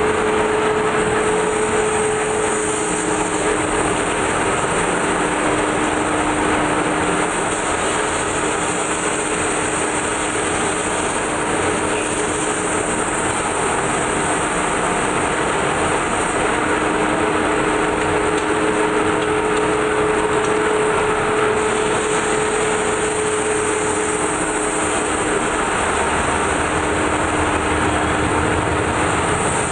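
Large metal-spinning lathe running, with a long hand-held lever tool pressed against a big spinning sheet-metal dish as it is formed. The mechanical noise is loud and steady, with a faint hum that fades out and returns.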